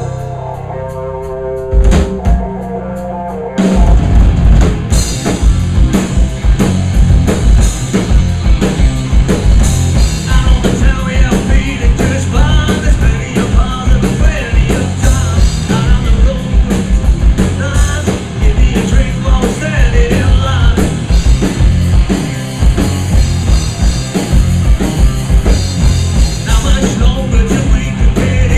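Rock band track: a sparse opening with a few drum hits, then the full band comes in about four seconds in, with a busy, steady drum-kit beat under the rest of the band.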